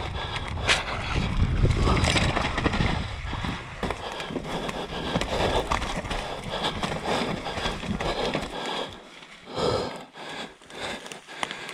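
Hardtail mountain bike rolling fast down a dirt and leaf-covered trail: tyres running over the ground with constant rattling and clicking from the bike, and a low rumble that is strongest in the first three seconds. It grows quieter in the second half, with a short loud clatter shortly before the end.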